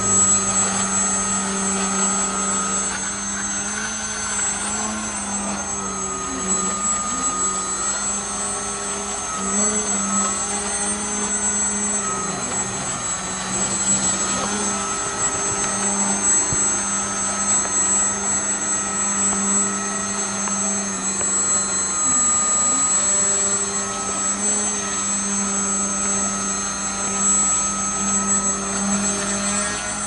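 Motor and propeller of a small foam RC delta-wing plane, droning steadily at high throttle, its pitch dipping and coming back up several times as the throttle is eased and reapplied.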